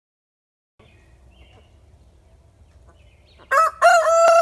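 Rooster crowing near the end: a short opening note, then a long held note. Faint background with a few distant bird chirps comes in about a second earlier.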